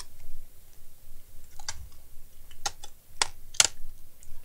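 A handful of sharp clicks and taps from a laptop's plastic case and parts being handled during disassembly, the loudest a little over halfway through.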